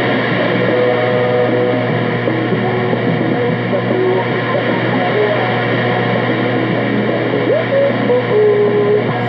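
Music from a Spanish-language shortwave broadcast coming out of a communications receiver tuned to AM: short melodic notes under an even hiss of static, with a steady low hum. It has the thin, muffled sound of AM shortwave reception.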